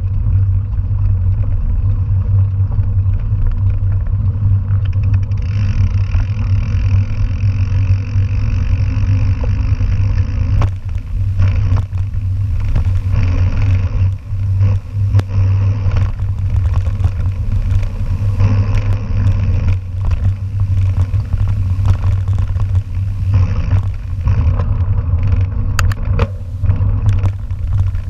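Mountain bike rolling along a gravel forest road: a loud, steady low rumble of the ride, with rattles and knocks from the bike over rougher ground starting about ten seconds in.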